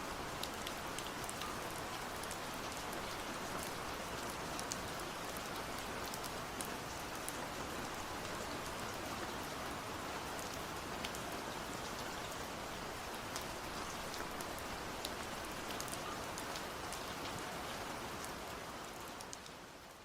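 Steady rainfall with scattered sharp drop ticks, fading out near the end.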